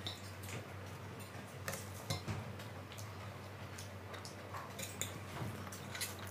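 A metal fork clinking and scraping against a stainless steel plate while noodles are twirled and lifted. It comes as a scattering of short sharp clicks, over a faint low hum.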